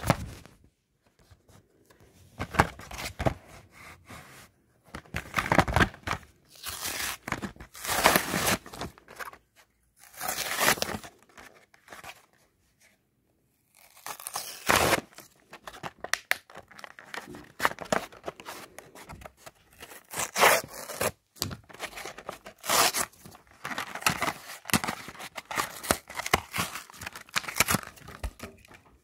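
Cardboard and plastic blister packaging of a die-cast toy car being torn open by hand, with crinkling of the plastic, in irregular bursts and a pause of about two seconds midway.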